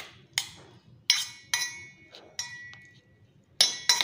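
Steel spoon clinking against a stainless steel bowl while stirring boiled corn kernels and butter: about eight sharp, irregularly spaced clinks, each leaving a short metallic ring from the bowl.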